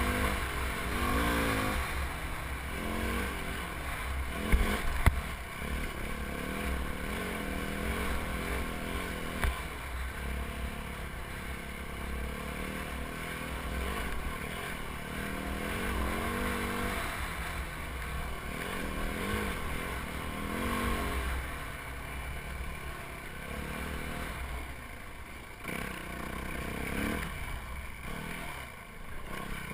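Yamaha WR450F dirt bike's single-cylinder four-stroke engine under way, heard from a helmet camera, its revs rising and falling over and over with the throttle and gear changes. A few sharp knocks come about four and a half to five seconds in.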